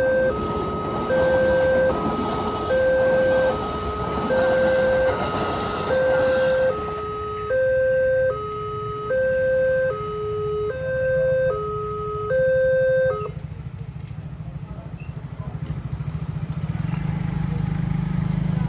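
Electronic railway level-crossing warning alarm sounding a two-tone hi-lo pattern, switching pitch about every three-quarters of a second, then cutting off abruptly about 13 seconds in. A low rumble follows and grows louder near the end.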